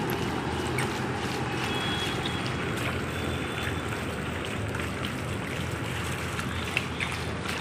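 Feet in flip-flops wading through ankle-deep floodwater, the water sloshing and splashing steadily.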